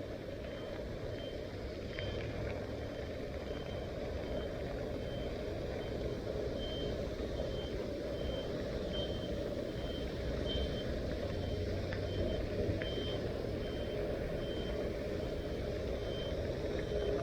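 A high electronic beep repeating evenly, about once a second, over a steady low rumble, with a few faint clicks.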